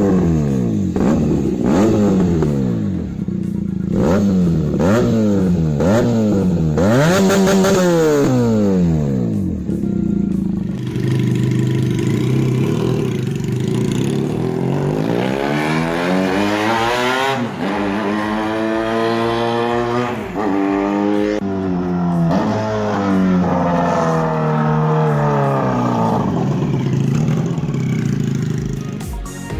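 Benelli TNT 300's parallel-twin four-stroke engine revving. It gives about six quick throttle blips, then accelerates hard, the pitch climbing and dropping back sharply at each gear change.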